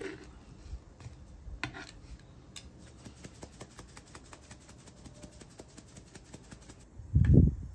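Spice shaker being shaken over raw chicken breasts, a run of faint rattling ticks, with occasional clicks from metal kitchen tongs. A dull, low thump near the end is the loudest sound.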